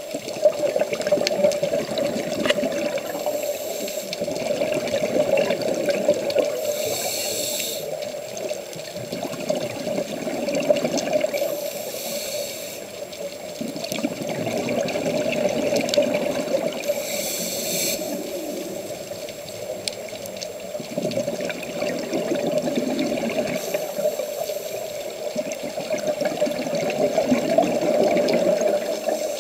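Scuba diving ambience through a camera's underwater housing: a steady muffled rush of water and bubbles, with a short burst of regulator breathing hiss about every five seconds.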